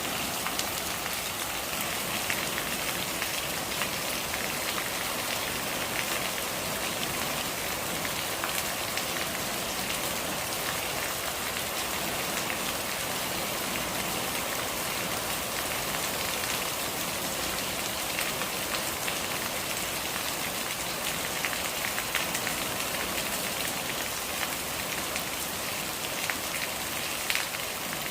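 Steady rain falling, with many small drop clicks over an even hiss and rainwater gurgling.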